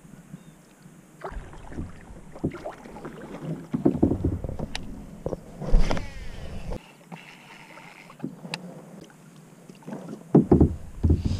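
Paddling a plastic sit-in kayak: paddle strokes splashing in the water in uneven bursts, with scattered sharp knocks of the paddle and gear against the hull.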